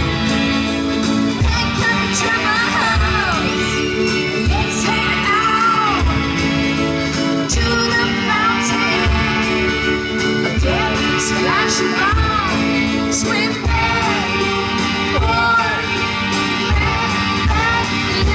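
A woman singing lead over a live rock band, with drums beating a steady rhythm under her voice.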